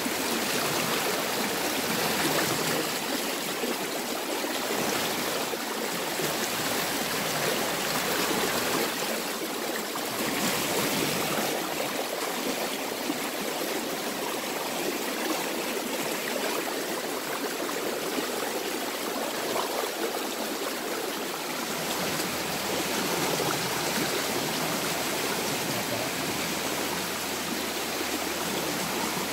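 Shallow stream rushing steadily over rocks.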